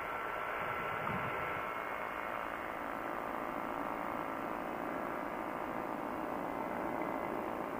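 Quicksilver ultralight in cruise flight: a steady, muffled drone of engine and wind, with a faint hum of engine tones running through it.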